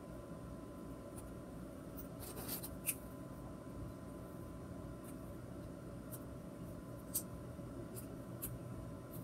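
Marker pens rubbing and scratching on paper as a child colours, faint over a steady low room hum, with a few short sharp clicks.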